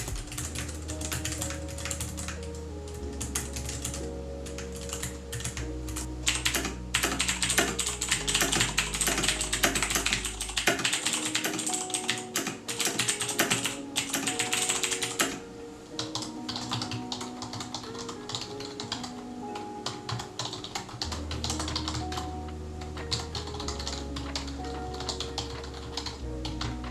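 Typing sound test on several keyboards in turn, among them a Keychron K3 low-profile keyboard with Keychron optical hot-swappable brown switches. The keystrokes are fast and clacking, and their sound changes several times as the keyboard changes. Background music with a steady bass line plays underneath.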